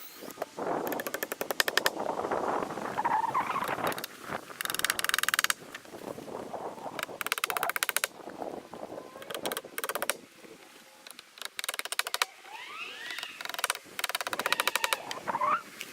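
Several bursts of fast, rattling impacts, each lasting a second or so, from fastening the cross braces of a timber post foundation, with a few short rising whines between the bursts.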